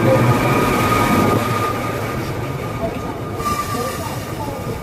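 A train passing close by: a steady rumble with a thin high squeal from the wheels. It is loudest in the first second or so, then eases a little.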